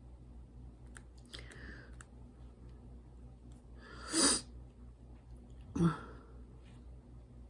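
Two short, noisy breaths from a person close to the microphone, about four and six seconds in, with faint scattered clicks in between.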